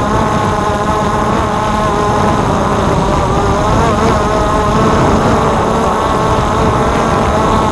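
DJI F550 hexacopter's six motors and propellers buzzing in flight. The pitch wavers slightly up and down as the throttle shifts, over a steady low rumble.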